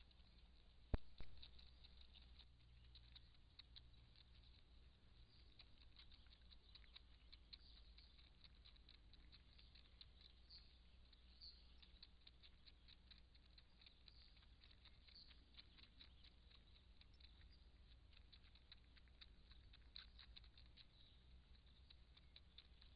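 Near silence: a low steady hum with faint rapid ticking throughout, and one sharp click about a second in.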